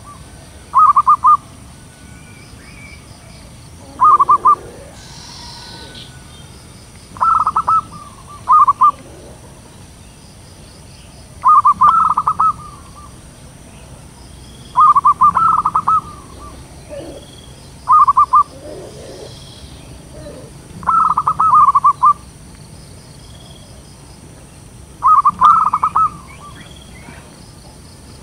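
Zebra dove (perkutut) cooing: short phrases of quick, stuttering coos, repeated about ten times at intervals of one to four seconds. Faint chirps of other birds sound between the phrases.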